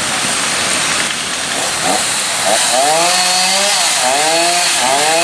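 Chainsaw running, its engine pitch rising and falling as it is throttled up and down, over a steady hiss.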